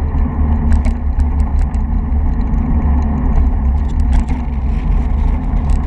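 Heavy wind buffeting on a bike-mounted camera's microphone with steady road rumble while riding along, and scattered light clicks and rattles.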